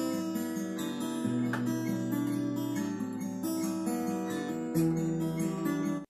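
Acoustic guitar with a capo playing a chord progression, chords ringing and changing about every second, with a louder strum near the end. Recorded through a phone's built-in microphone.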